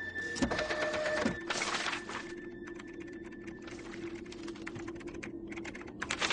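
Sheets of paper being handled and shuffled on a desk: rustling with scattered clicks and taps, over a faint steady hum.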